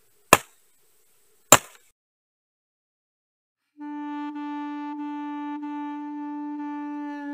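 Two sharp machete chops into a thin branch, a little over a second apart, then silence; about four seconds in, a single long held woodwind note from the music track begins and holds steady.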